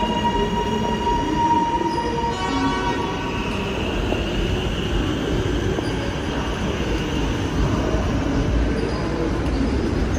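High Capacity Metro Train electric multiple unit pulling out of the station, its carriages rolling past with a steady rumble. A high whine from the electric traction equipment rises in pitch a few seconds in as the train gathers speed.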